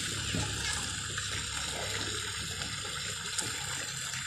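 Steady rush of moving water in an outdoor swimming pool, with small splashes from a swimmer in the water.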